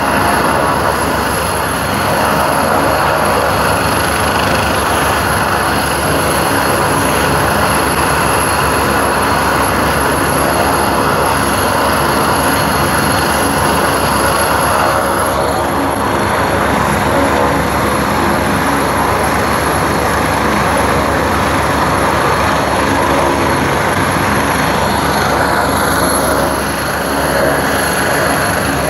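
Helicopter running on the deck with its rotors turning: a loud, steady turbine whine over continuous rotor noise.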